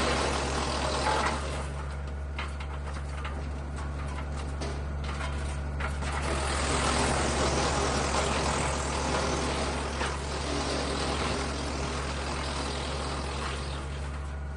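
Frontier DH8 wood chipper running with a steady engine drone, with grinding and crackling as wood is fed through it, loudest in the first second and again from about six to nine seconds in.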